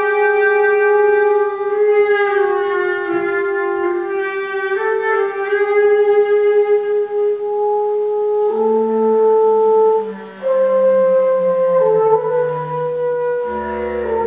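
Clarinet and French horn playing long held notes in contemporary chamber music. A lower line joins about two-thirds of the way in and slides down, and a deep low note sounds near the end.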